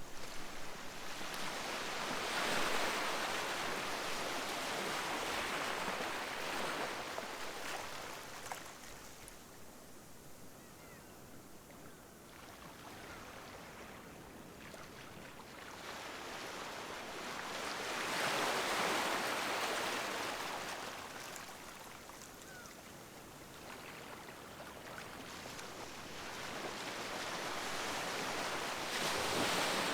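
Sea waves breaking and washing up the beach in slow surges, each one swelling and then fading away. The surges are loudest a couple of seconds in, a little before twenty seconds, and again near the end.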